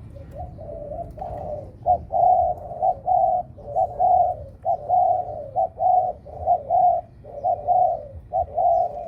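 Male dove cooing over and over in short, closely spaced phrases, about two a second: a bird that is fired up.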